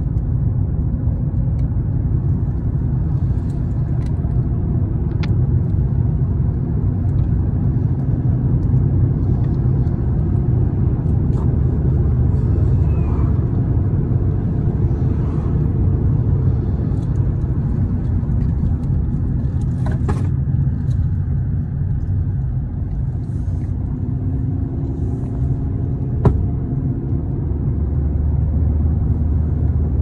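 Steady low rumble of a car's tyres and engine at cruising speed, heard from inside the cabin. A few faint clicks come through, and one sharper knock near the end.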